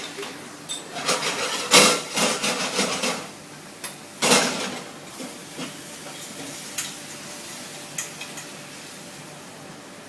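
Cookware clatter: utensils scraping and knocking against a pan in bursts about a second in and again around four seconds, followed by a few single clicks.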